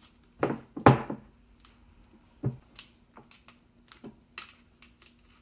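Kitchen handling sounds while stuffing roasted poblano peppers with shredded cheese: a few short knocks and clicks, the loudest pair about a second in, with softer ones scattered after.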